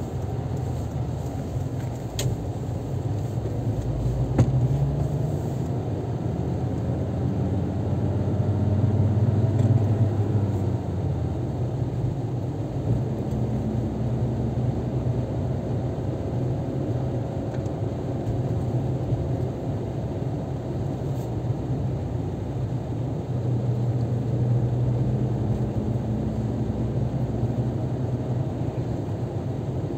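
Engine and tyre noise of a car on the move, heard from inside the cabin: a steady low rumble. The engine note rises and falls as the car speeds up and slows, loudest about ten seconds in.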